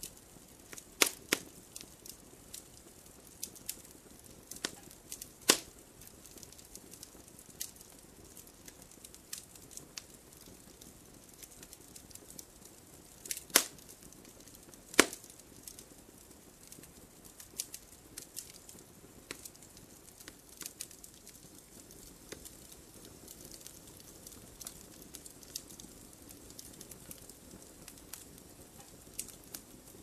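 Wood campfire crackling: scattered sharp pops and snaps over a soft hiss, with a few much louder pops, the two loudest near the middle.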